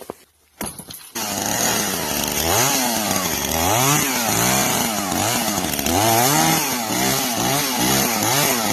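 A chainsaw starts about a second in and runs loudly, its engine revving up and down over and over.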